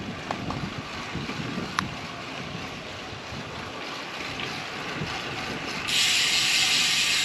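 Wind rushing over the microphone of a camera on a moving road bicycle, a steady rumbling noise. About six seconds in, a louder hiss suddenly comes in and holds to the end.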